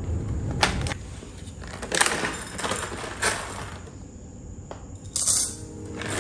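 Coffee gear being handled at a home espresso machine: scattered small clicks and clinks of beans, cup and metal parts, with a short rattle about five seconds in.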